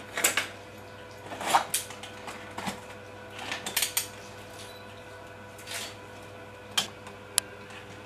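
Small tools and plastic parts being handled in a plastic tray on a workbench: scattered knocks and clatters, with a sharp click about seven seconds in, over a faint steady hum.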